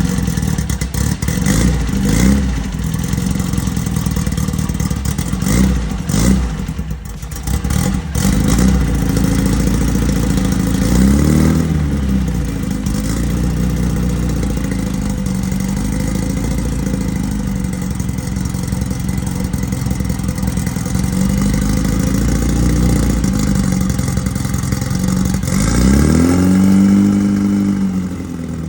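Freshly installed 1776cc air-cooled VW flat-four running on its first start, idling with a clattery note and revved up and back down a few times, the strongest rev near the end.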